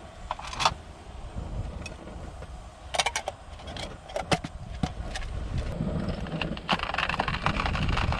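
Small clicks and knocks of objects being handled, over a steady low rumble, with a louder rustling hiss starting about two-thirds of the way through.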